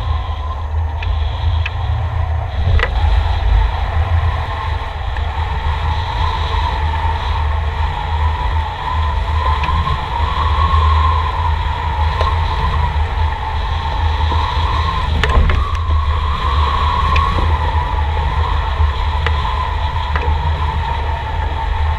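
Airflow buffeting a wing-mounted action camera on a hang glider in flight: a steady rush with a deep rumble and a wavering whistle.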